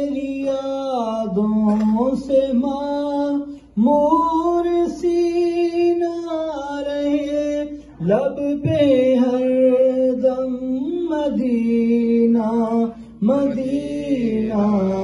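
A man singing an Urdu naat into a microphone. He holds long, drawn-out melodic phrases that glide between notes, and breaks off briefly for breath every four to five seconds.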